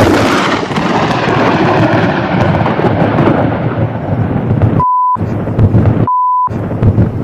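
Thunder: a sudden loud crack that rolls on into a long rumble, slowly fading over several seconds. Two short steady high beeps cut into it about five and six seconds in.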